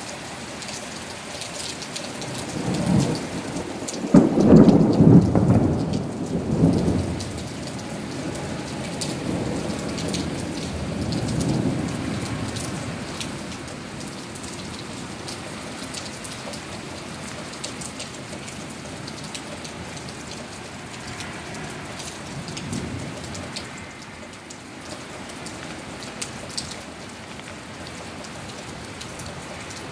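Thunderstorm: steady heavy rain falling on pavement, with a long rolling peal of thunder that builds about three seconds in, is loudest around five seconds in, and rumbles on for several seconds. A fainter rumble of thunder comes about twenty-two seconds in.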